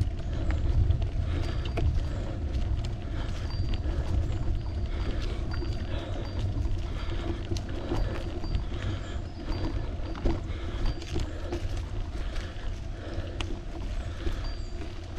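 Steady rumble of a bicycle ride: wind on the microphone and tyres rolling on the road, with scattered small clicks and rattles.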